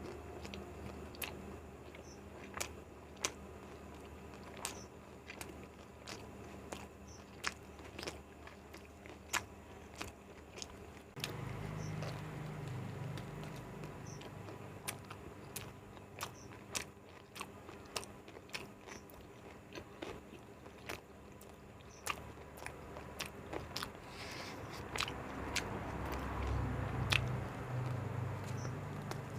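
Close-miked eating: biting into and chewing an egg roll, with scattered moist mouth clicks and crunches at irregular intervals.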